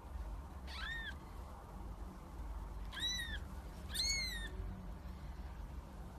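Kitten meowing three times: short, high-pitched mews about a second in, at about three seconds and at about four seconds, the last one a little longer, over a steady low hum.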